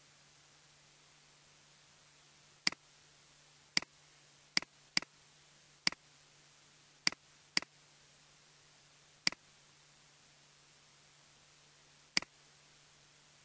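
Computer mouse button clicking, nine short sharp clicks at uneven intervals as shapes are selected and filled with the shape builder tool, over a faint steady hum.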